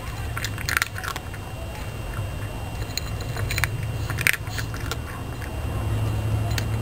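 Cat crunching dry kibble from a bowl: irregular crisp crunches, loudest about a second in and again past four seconds, over a steady low hum.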